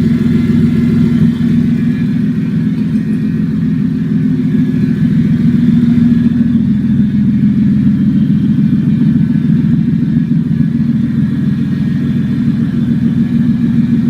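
1997 Toyota Avalon's 3.0-litre V6 running with open exhaust manifolds and no exhaust pipes fitted. The exhaust note is loud and steady.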